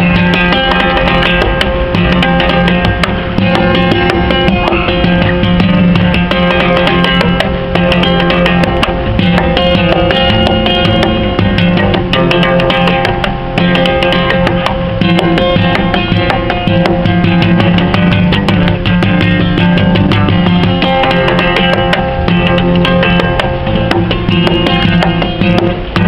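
Steel-string acoustic guitar played flat across the lap, lap-style: rapid, percussive strumming with notes fretted from over the neck, ringing on continuously.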